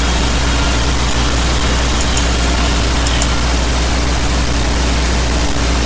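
Steady low hum with hiss over it, unchanging throughout, with no other events: the background noise of the sermon recording during a pause in speech.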